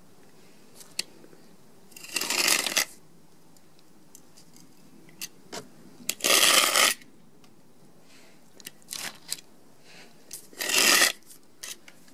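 Utility knife slicing through a printed image in three strokes, each under a second long, with a few small clicks between them.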